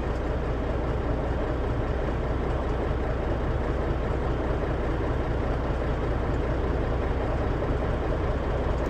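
Heavy truck engine running steadily, a constant low hum with no change in pitch.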